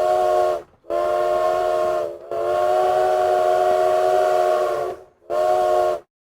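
Train whistle sounding a chord of several notes in four blasts: a short one, a longer one, a long held one, then a short one.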